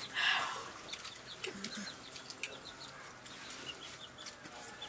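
Farm fowl calling, a loud harsh call just after the start, then brief high chirps, with scattered light clicks and knocks.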